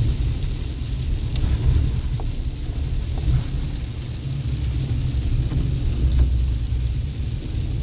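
Low, steady rumble of a Chevy Colorado Z71 pickup driving, its road and engine noise heard from inside, with a few faint ticks.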